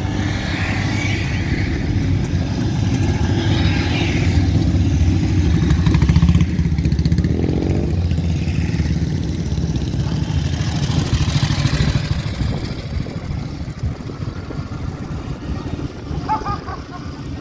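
Vintage motorcycle engines running as the bikes ride slowly past, one passing close by. The sound builds to its loudest about six seconds in and then fades.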